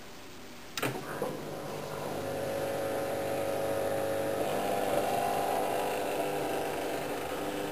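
Neff integrated dishwasher at the start of its quick cycle: a click, then a pump motor starts about a second in and hums steadily, building up over the next second.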